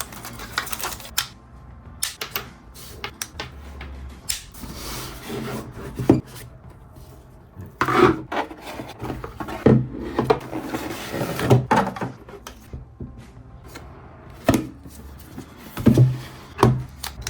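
Unboxing noise as product packaging is handled: cardboard and plastic rubbing and sliding, with scattered clicks and knocks.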